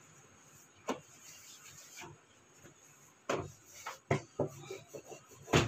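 Wooden rolling pin rolling out puri dough on a steel plate: soft rubbing with a few light knocks and taps, a small cluster past the middle and the loudest knock at the very end.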